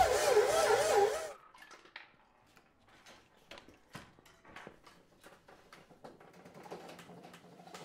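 Stand mixer kneading bread dough with its dough hook: a steady motor whine that wavers up and down in pitch, cutting off suddenly about a second in. After that it is quiet apart from faint scattered clicks.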